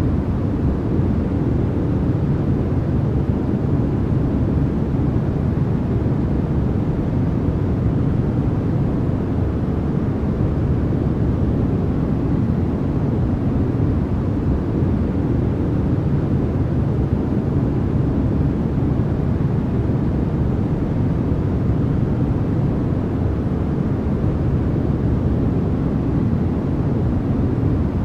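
Steady, unchanging noise track of the kind sold as white noise for sleep, weighted heavily to the low end so that it sounds like a deep, even rumble.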